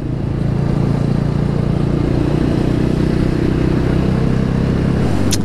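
A 200 cc motorcycle engine running steadily at highway cruising speed, its hum over a rush of wind and road noise, heard from the rider's seat.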